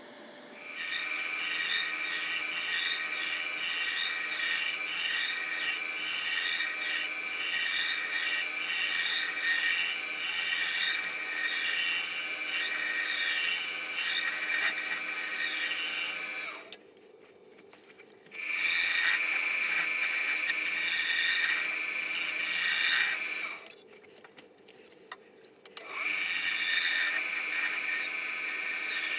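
Turning tool scraping and cutting the inside of a dry maple bowl spinning on a wood lathe: a loud, steady, high scraping whine whose pitch wavers up and down about once a second. It stops twice for a second or two when the tool comes off the wood.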